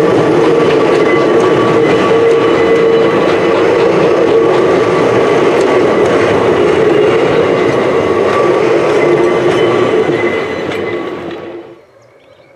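Railway passenger coaches rolling past close by, wheels clattering on the rails with a steady squeal as they take a curve. The sound cuts off suddenly near the end, leaving only a faint distant sound.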